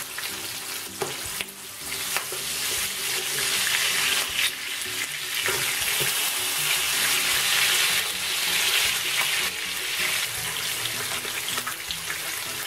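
Lamb shanks sizzling in shallow hot oil in a frying pan as they brown, the hiss swelling through the middle. A few sharp clicks come as metal tongs turn the shanks against the pan.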